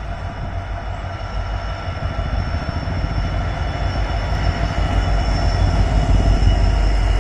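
Twin diesel locomotives hauling an express train as they approach and pass: a low engine rumble with a steady high whine on top, growing louder.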